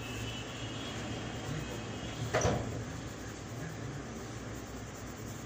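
Steady low background hum, with one short noisy scrape about halfway through.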